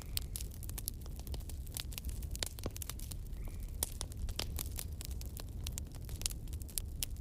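Bonfire crackling: frequent irregular sharp pops and snaps over a low, steady rumble.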